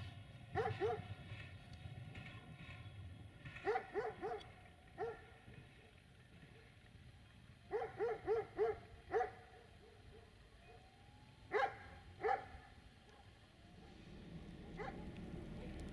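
A dog barking in short runs of one to five barks, with pauses of a few seconds between them.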